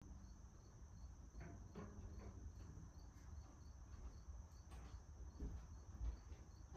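Near silence: quiet room tone with a faint high chirp repeating evenly about three times a second, and a few soft knocks in the second half.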